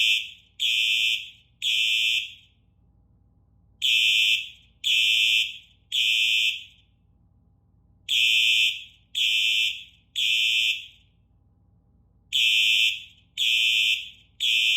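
Two Simplex electronic fire-alarm horns (4903-9236 and 4903-9241) sounding together in the code 3 temporal pattern, the standard evacuation signal. The horns give three loud half-second blasts, then a pause of about a second and a half, and the cycle repeats four times.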